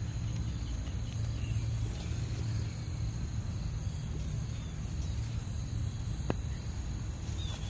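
Outdoor ambience: a steady high insect chirring over a low rumble, with one sharp click a little past six seconds in.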